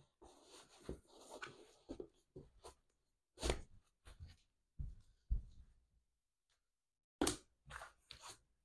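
A football boot being put on and laced: rustling of the synthetic upper and laces being pulled, with a few short thumps, the loudest about three and a half, five and seven seconds in, as the foot and boot knock down on artificial turf.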